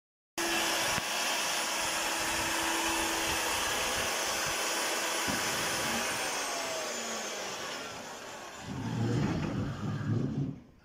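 Electric diamond core drill running as it bores a water-cooled core out of a concrete column: a steady whining grind with a slowly falling tone. It gets quieter in the second half, gives a heavier low rumble about two seconds before the end, then stops abruptly.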